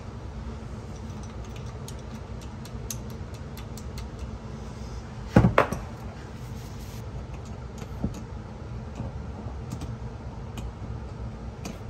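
Small metal parts of a press pump's air motor clicking and tapping as they are handled and fitted together, with one louder clunk about five and a half seconds in as the metal housing is set down on a wooden workbench. A steady low hum runs underneath.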